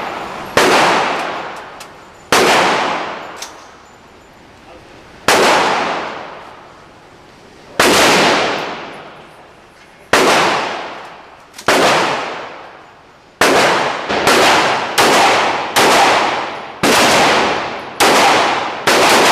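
Gunshots at a shooting range, about a dozen single shots, each followed by a long echoing decay. They come a couple of seconds apart at first, then faster, under a second apart, in the last third.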